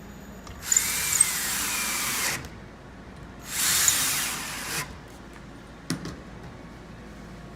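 Power drill driving 4-inch screws into cedar, two runs of a second or two each, the motor pitch sagging and recovering under load. A short knock follows near the end.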